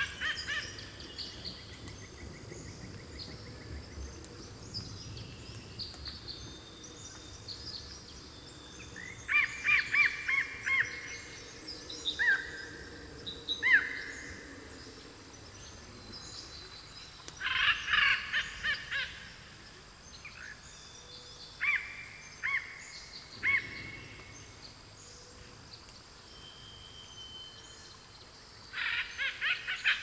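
Several small birds singing and calling in bursts every few seconds: fast runs of repeated chirps and short slurred whistles, loudest about ten, eighteen and twenty-nine seconds in, over a faint steady low rumble.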